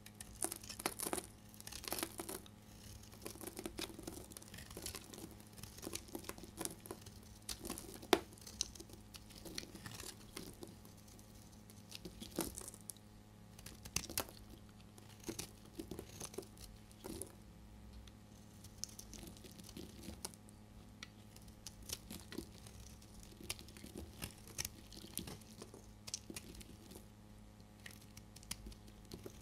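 A snap-off utility knife blade cutting into a bar of dry, hard soap, shaving off curls with irregular crisp crackling scrapes.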